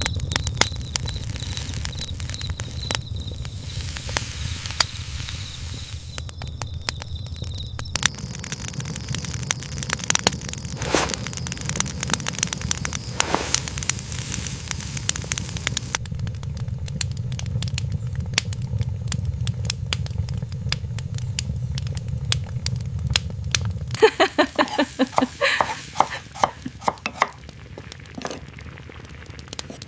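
Campfire crackling: dense, irregular pops and snaps over a steady low rumble, with a cluster of louder pops near the end.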